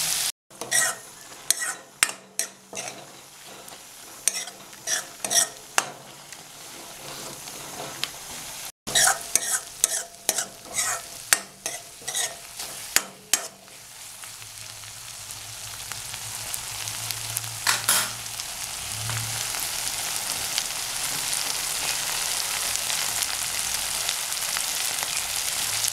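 Spatula scraping and knocking against a metal kadai as a fish-intestine and brinjal curry is stirred, over a sizzle of frying oil. The stirring stops about halfway through, and the steady sizzle then grows louder toward the end.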